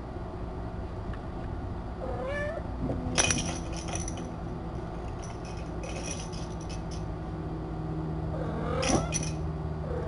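A cat meows twice, a short rising call about two seconds in and another near the end. Sharp clicks and knocks fall between the calls, the loudest about three seconds in.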